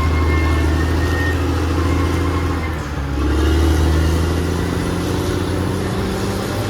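Caterpillar D6R XL bulldozer's diesel engine running steadily, easing off briefly about three seconds in, then picking up again slightly higher in pitch.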